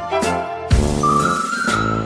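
Background music: a whistled or flute-like melody over a steady beat.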